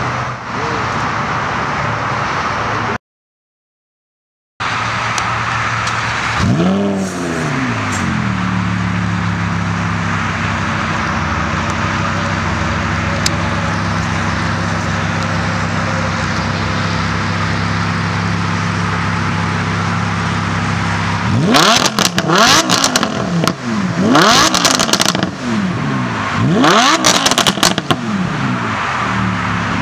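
Lamborghini Huracán's V10 starting: a quick flare up to high revs that settles into a steady idle, then near the end a run of sharp throttle blips, each rising and falling, with exhaust crackles between them, before it drops back to idle.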